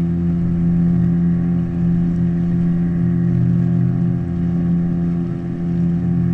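Boat motor running steadily at cruising speed, an even drone with a strong low hum.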